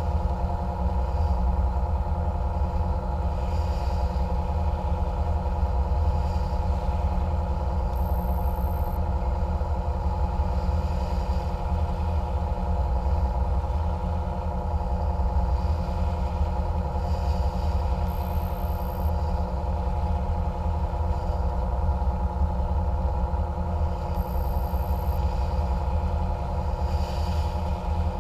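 Catamaran cruiser's engines running steadily under way, a constant low drone with an even hum that does not change.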